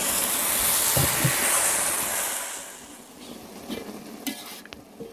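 Genjer-flower stir-fry sizzling in a hot pan as it is stirred, with two low knocks of the utensil about a second in. The sizzle dies away about two and a half seconds in, leaving a few light clicks of the utensils.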